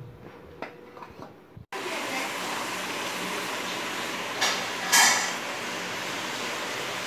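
A few light clinks of a stainless steel bowl being handled, then, from a sudden cut, a steady rushing hiss with two brief whooshes about halfway through.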